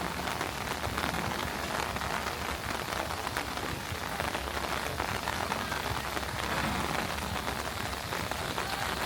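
Steady rain falling, a dense even hiss of many fine drops hitting surfaces.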